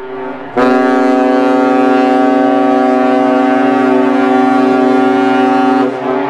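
Ship's horn sounding one long, steady blast of about five seconds, starting about half a second in and stopping near the end.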